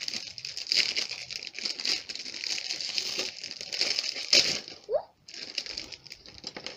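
Clear plastic bag of toy parts crinkling as it is opened and handled, with a short break about five seconds in.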